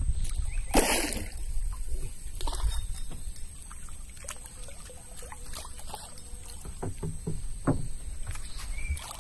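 Water lapping and sloshing against a wooden boat's hull, with scattered knocks and clicks and one louder short noise about a second in.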